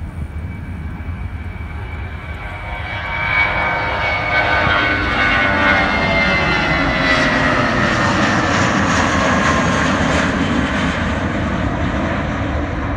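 Airbus A319 airliner's twin jet engines at takeoff thrust as it climbs out past the listener: a loud rushing engine noise with whining tones that slide steadily down in pitch as it goes by. The noise grows louder about three and a half seconds in and stays loud.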